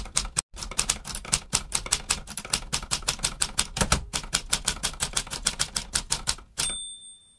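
Typewriter sound effect: a fast, even run of key clacks, about seven a second, ending near the end in a single ringing bell ding like a carriage-return bell.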